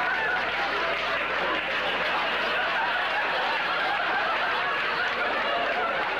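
Studio audience laughing without a break, a dense crowd laugh that holds at an even level.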